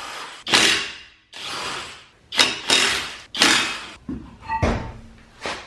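Impact wrench run in about five short trigger bursts, each roughly half a second, spinning a nut. Smaller knocks and clicks follow near the end.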